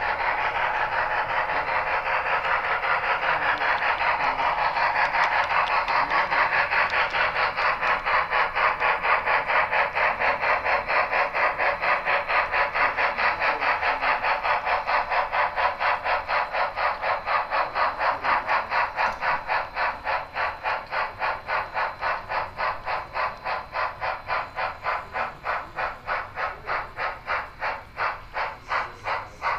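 Sound-equipped HO-scale model steam locomotive chuffing through its small onboard speaker. The chuffs run quickly at first, then slow to about three or four a second as the engine slows down.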